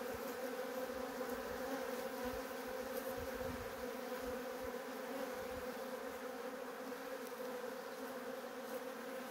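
Honeybees buzzing around a hive in a steady, continuous hum, stirred up after being shaken off the frames.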